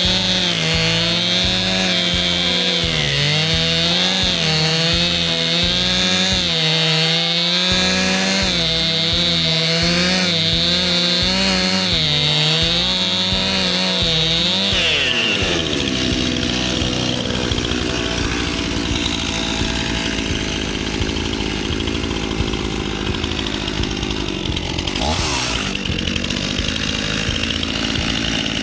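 Stihl chainsaw cutting into a tree trunk, the engine pitch wavering up and down as the chain bites under load. About halfway through the pitch drops and the saw runs on more steadily at a lower pitch.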